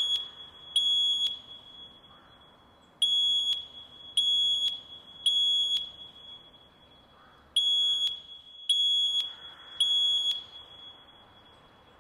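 Fire alarm sounding the high-pitched temporal-three evacuation tone: groups of three half-second beeps about a second apart, with a pause of a second and a half or so between groups. This pattern is the standard signal to evacuate the building.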